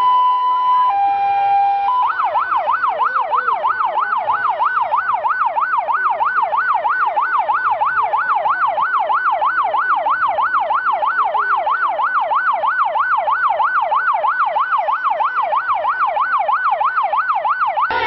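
Electronic vehicle siren sounding loud and steady, first alternating between two notes about once a second, then switching about two seconds in to a fast yelp that sweeps up and down about two and a half times a second.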